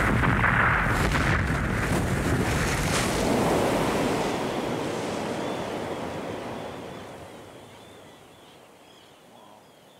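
Film soundtrack of a glacier calving, played over a hall's loudspeakers: ice crashing into the sea with a deep noise and a few sharp cracks in the first three seconds, then the wash of the water dying away over the last few seconds.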